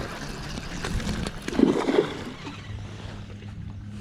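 Steady low hum of a boat motor under wind and water noise, with a brief louder rough burst about one and a half seconds in, as a hooked largemouth bass is fought beside the boat.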